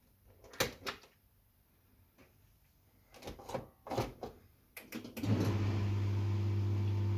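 Several knocks and clicks, then about five seconds in a Siemens dishwasher starts up with a steady, loud hum over a rushing noise. This is the fault the owner complains of: the machine hums but does not wash.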